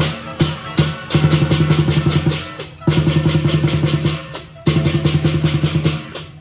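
Lion dance drum ensemble accompanying a dancing lion: three single beats, then three fast drum rolls with short breaks between them, with crisp metallic strokes on each beat.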